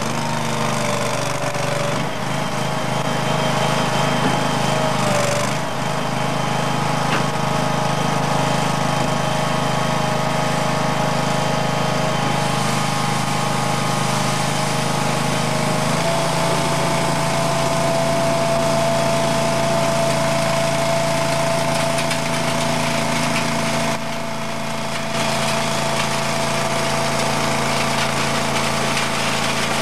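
Skid steer loader's engine running steadily with a whine over it. The pitch shifts once, about 16 seconds in.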